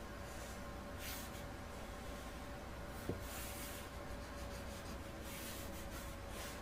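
A pen drawing lines on paper in scratchy strokes: a short one about a second in, another just after a small tap at about three seconds, and a longer run of strokes near the end, over a faint steady hum.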